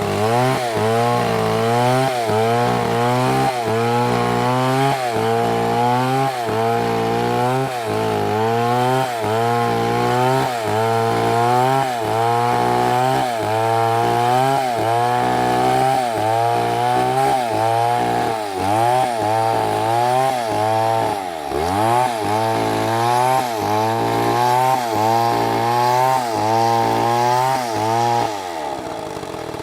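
Chainsaw running at high revs in a cut, its engine pitch dipping and recovering in a regular rhythm about once a second as it bogs under the load of the wood. Near the end the engine falls back toward idle.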